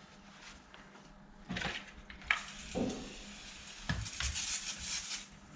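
A few separate knocks and clatters of tools or parts being handled and set down, then about a second of rubbing and rustling near the end.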